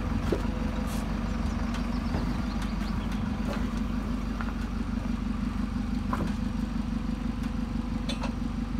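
Tractor engine idling steadily, with a few faint clicks and knocks scattered over it.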